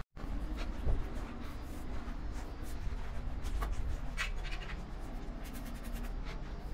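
Snooker play: after a brief dropout, one sharp knock about a second in, then light scraping and scattered small clicks over a steady low hum.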